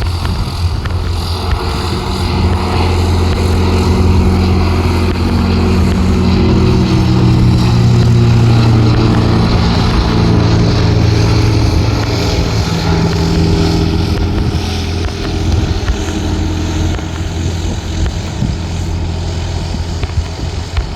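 Ikarus C42 microlight's propeller engine running at climb power as the aircraft departs, building to its loudest about eight seconds in, then fading a little and dropping slightly in pitch as it draws away.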